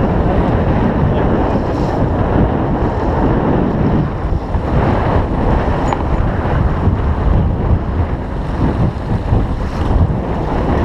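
Loud, steady wind buffeting the microphone over the rush and splash of water along the hull of a 28-foot Pearson Triton sloop heeled and moving fast under sail.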